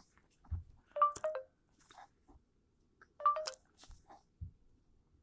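A short electronic chime-like tone sounds twice, about two seconds apart, with a few soft low thumps in between.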